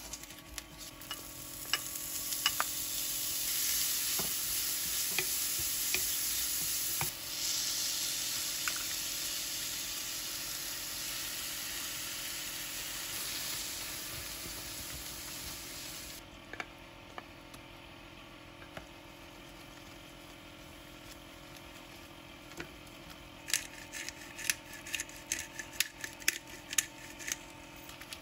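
Food sizzling in a hot frying pan, swelling in the first few seconds and then cutting off suddenly a little over halfway through. Near the end comes a run of quick, light clicks and taps.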